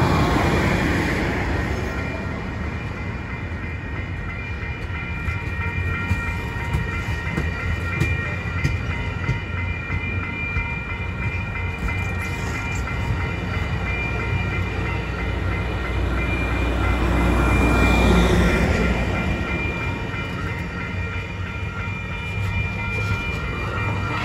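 Bilevel passenger train rolling steadily past at close range, steel wheels running on the rails, growing loudest about three quarters of the way through.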